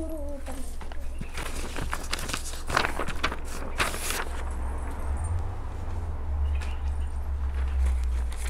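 Sheets of paper rustling and crinkling as they are handled and fed onto burning charcoal to light it, with a cluster of sharp rustles in the middle, over a steady low rumble.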